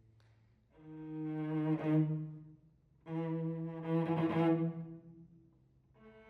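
Solo cello playing two long bowed notes, each swelling up and fading away, with a softer held note entering near the end.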